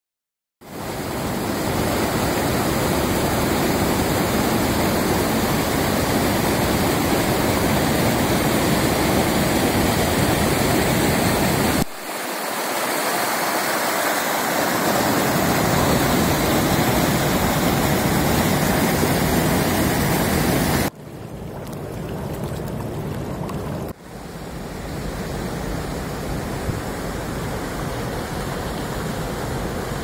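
Fast mountain creek rushing over rocks in white-water rapids and cascades: a steady, loud rushing of water. It changes abruptly a few times and drops somewhat in level about two-thirds of the way through.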